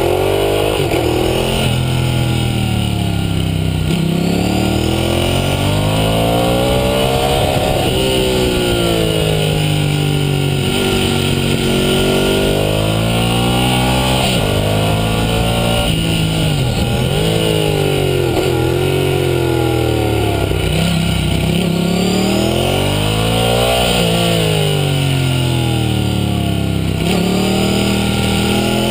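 Ducati Hypermotard 1100's air-cooled L-twin engine at full track pace, revving up through the gears and dropping back under braking, its pitch rising and falling over and over from corner to corner.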